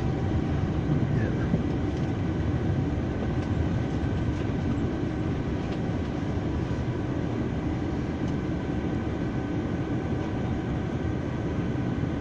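Steady rumble of a train running along a station platform as it pulls in, heard from inside the carriage, with a faint steady whine on top.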